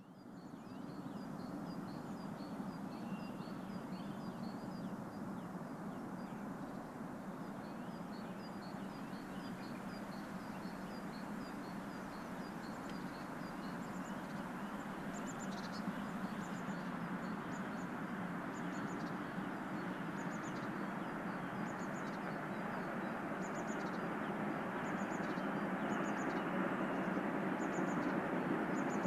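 Small birds chirping in short, repeated calls over a steady distant rumble that slowly grows louder.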